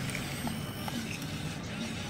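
Toy RC excavator working as its boom lifts: a steady low mechanical hum.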